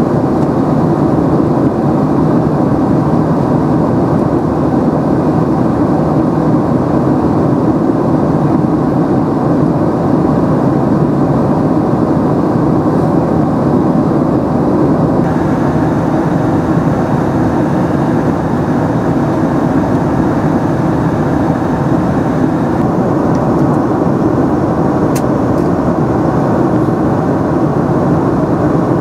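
Steady roar of a Boeing 767-300ER in cruise, heard inside the cabin at a window seat beside the engine: turbofan drone mixed with airflow rush. About halfway through the hiss brightens a little for several seconds.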